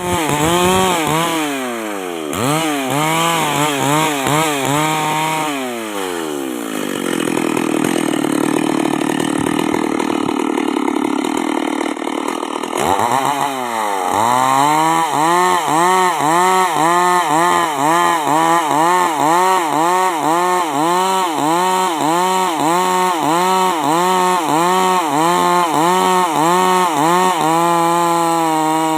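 Two-stroke Stihl chainsaw. It revs up and down over and over, then runs steadily at lower revs for several seconds while cutting into the log. After that the revs rise and fall in a fast rhythm, about twice a second, and hold steadier near the end.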